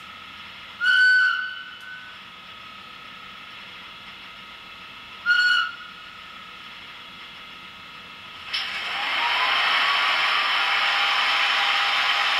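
Electronic sound from the model Swiss electric locomotives' ESU sound decoders: two short horn blasts about four seconds apart, then a loud steady hiss that starts suddenly with a click, with a faint whine rising under it.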